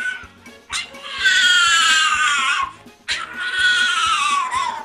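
Domestic cat giving two long, drawn-out meows, each falling in pitch, over background music.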